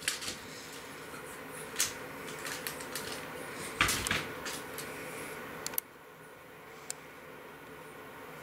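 A cat jumping onto and climbing a plush cat tree with sisal-wrapped posts: a few thumps, knocks and claw scrabbles, the loudest about four seconds in, over a faint steady hum.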